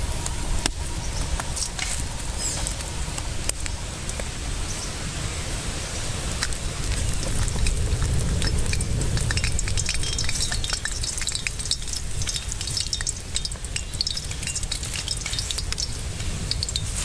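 Hot oil sizzling and popping in a steel wok over a wood fire as dried red chillies and spices fry in it, with a steady hiss and many fine crackles.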